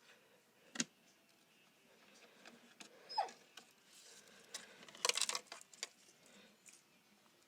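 Small metal parts and wire being handled: a few separate sharp clicks, then a short burst of jangling rattles about five seconds in.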